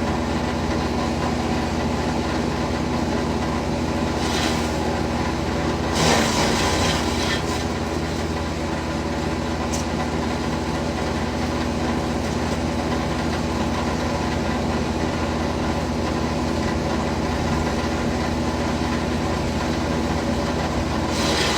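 Wood chipper's engine running steadily, with two brief louder, rougher bursts about four and six seconds in.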